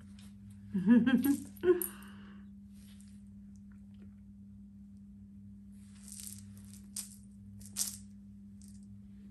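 A clear plastic toy ball with small beads inside rattles and clicks in short bursts as kittens bat and roll it, with two sharp clicks near the end. About a second in, a brief wavering vocal sound is the loudest thing.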